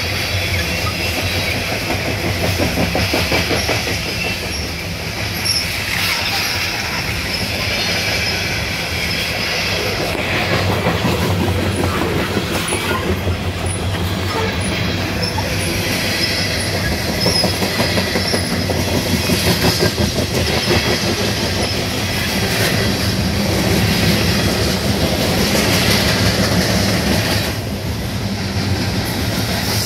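Loaded CSX coal hopper cars rolling by, their wheels clicking steadily over the rail joints in a continuous clickety-clack.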